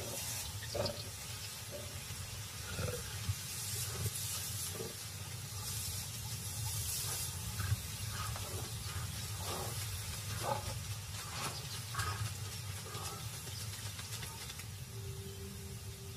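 Lions growling in short calls off and on over a steady hiss. A low held musical note comes in near the end.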